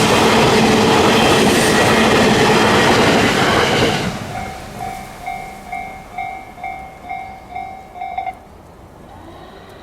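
Narita Express train passing over a level crossing, loud rail and wheel noise that dies away about four seconds in. Then the level-crossing warning bell rings alone, about two strikes a second, and stops a little after eight seconds in, as the crossing clears.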